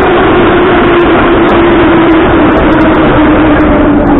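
Moscow Metro train running through a tunnel, heard loud from inside the car: a dense rumble and rattle of wheels on rail, with a motor whine that slowly falls in pitch as the train loses speed.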